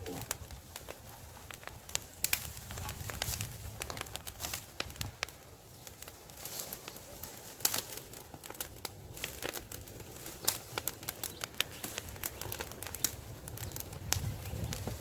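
Campfire of burning timber crackling and popping in irregular sharp snaps over a low steady rumble.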